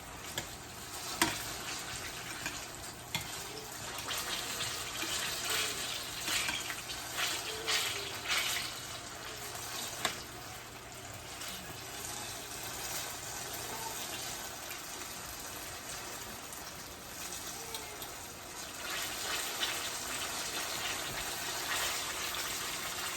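Turon, plantain and jackfruit rolls in wrappers, sizzling as they fry in oil in a pan, with a few sharp clicks scattered through.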